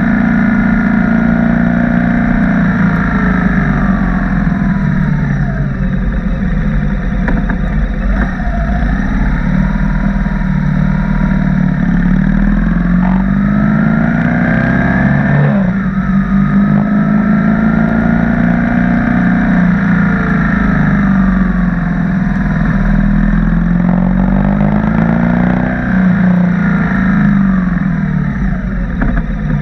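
BMW R1200 boxer-twin motorcycle engine under way, repeatedly accelerating and easing off. Its pitch climbs and drops with gear changes and throttle, with sharp drops several times.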